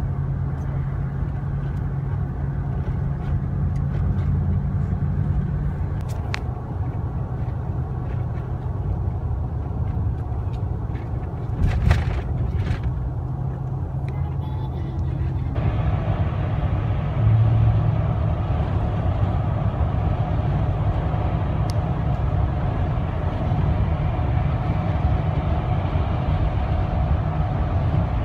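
Car interior while driving: a steady engine hum and tyre rumble. About halfway through, it switches abruptly to a louder, hissier road noise like highway cruising, and a few short clicks come a little before that.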